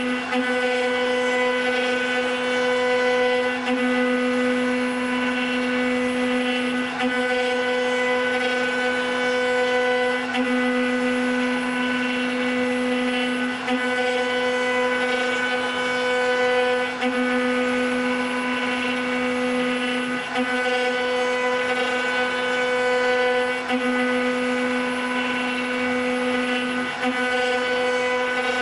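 Spindle motors of a CNC wood router with a rotary axis, cutting while they carve turned wooden balusters. They give a steady humming whine with a short hitch about every three and a half seconds.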